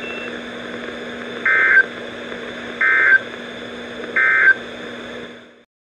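NOAA Weather Radio sending the Emergency Alert System end-of-message code: three short warbling digital data bursts about 1.3 s apart, over radio hiss and a low steady hum. The audio cuts off shortly before the end.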